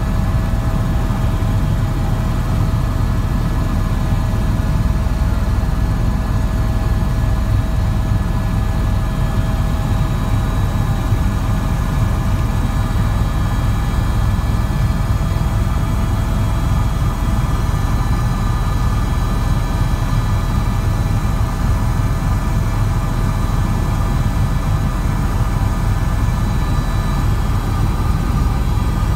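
Helicopter in flight heard from inside the cabin: a loud, steady low rumble of rotor and engine with a constant high whine over it.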